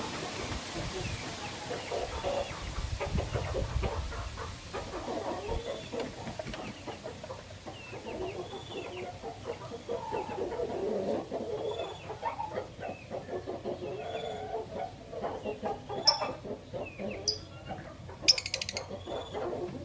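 Birds chattering: many short chirps and clucking calls in a busy, uneven stream, with a few sharp clicks near the end.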